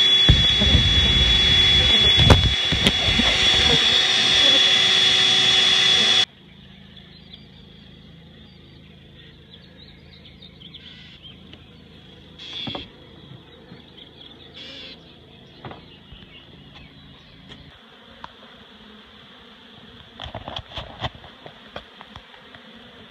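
A honeybee colony buzzing loudly around exposed comb, cutting off suddenly about six seconds in. After that, only faint buzzing with a few light knocks and rustles.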